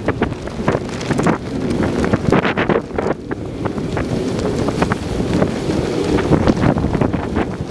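Wind buffeting the microphone over the steady rush of a house fire and hose spray, with many sharp crackles and pops from the burning building.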